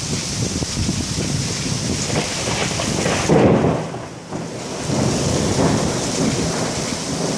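Heavy downpour during a thunderstorm, rain pouring steadily, with a loud rumble of thunder swelling up about three seconds in and falling away a second later.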